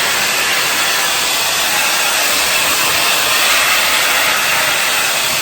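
Compact folding hair dryer blowing steadily on its lower speed setting, a constant, even rush of air.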